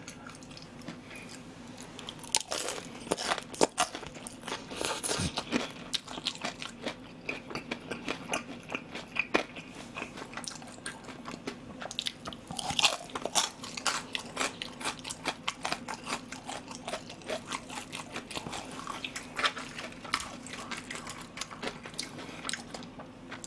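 Close-up crunching and chewing of deep-fried battered pork in soy sauce (ganjang tangsuyuk), bite after bite, with many irregular crisp crackles.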